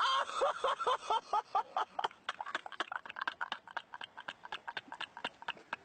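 A person's high-pitched, rapid laughter: a fast string of short squeaky yelps, several a second, which thins into fainter, breathier pulses after about two seconds.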